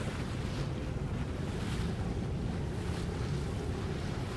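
Wind buffeting the microphone over open water, with a low steady hum of boat engines and the wash of small waves.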